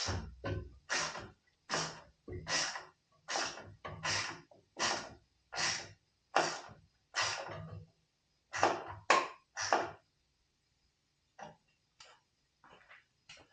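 Rhythmic scraping strokes, roughly one every three quarters of a second, then three quicker strokes and a few faint clicks near the end.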